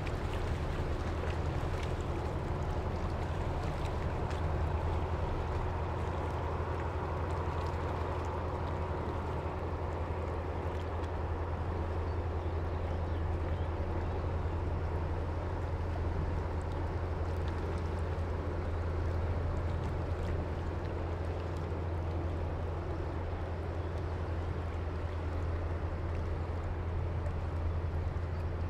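Steady low drone of a ship's engine on the river, over water sounds, with no sudden events.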